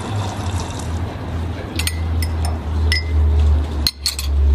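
Metal teaspoon clinking against a ceramic coffee cup: a few light taps, some with a short ring, from about two seconds in and a couple more near the end, over a steady low rumble.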